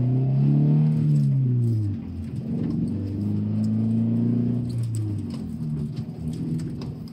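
The 2.0-litre flat-four boxer engine of an 86-platform sports coupe, heard from inside the cabin while driving: it climbs in pitch under throttle and eases off within the first two seconds, then runs steady at a lower pitch before fading about five seconds in.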